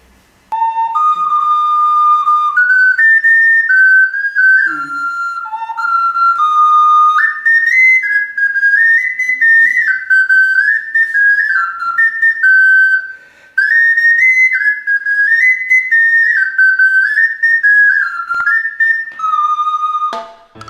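Handmade ceramic clay whistle, blown from the side like a transverse flute, playing a tune of stepped notes, with a short pause about two-thirds of the way through.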